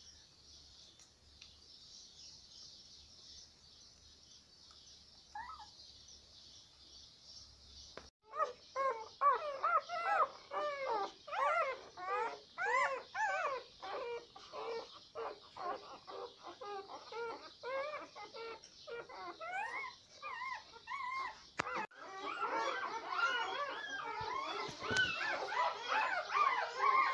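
Newborn puppies crying: many short, high squeaks and whimpers that rise and fall in pitch, several a second, starting suddenly about eight seconds in and growing denser and overlapping near the end. Before that only a faint steady hiss and one brief chirp.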